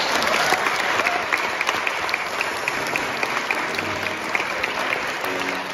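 Audience applauding, a dense clatter of many hands clapping that eases slightly toward the end.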